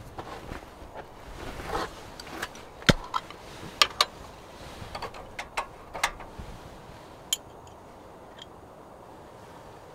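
A run of irregular sharp clicks and knocks, about a dozen in the first seven seconds, the loudest a few seconds in, like objects being handled and set down; after that only a faint steady background.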